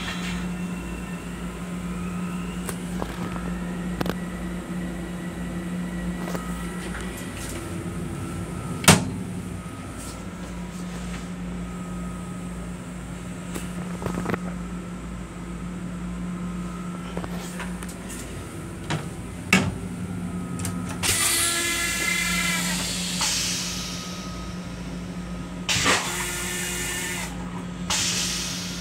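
Steady hum and running noise of a Long Island Rail Road M7 electric railcar, heard inside its small restroom, with scattered clicks and knocks. About three-quarters through there is a louder rushing noise with a ringing squeal in it, and another louder rushing noise near the end.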